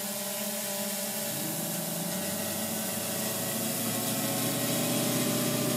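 Autel X-Star Premium quadcopter hovering: a steady hum of its four motors and propellers with several held tones, growing a little louder in the second half.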